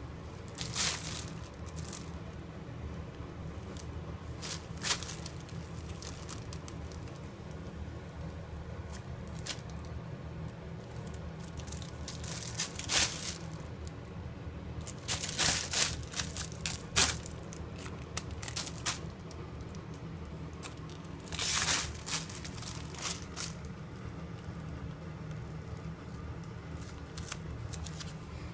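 Clear plastic bag crinkling and rustling in irregular bursts as a ferret scrambles over and through it, over a steady low hum.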